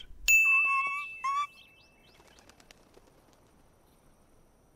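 Cartoon songbirds chirping and tweeting, loud for about a second and a half, then a few faint chirps, then near quiet.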